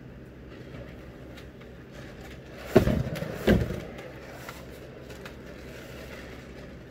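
Two dull knocks less than a second apart, about halfway through, from a wet paint-poured canvas being handled and tilted on its supports, over a steady low hum.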